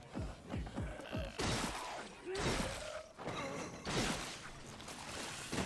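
Action sound effects from an anime fight scene: a quick run of low thuds that drop in pitch, about three a second, then several loud crashing, smashing impacts and a final sharp hit.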